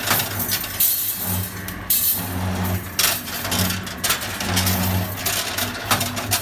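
Automatic CNC rebar stirrup bending machine working through its cycle on steel rebar: its motor hums in short spells of about a second, broken by sharp metallic clacks and bursts of hiss.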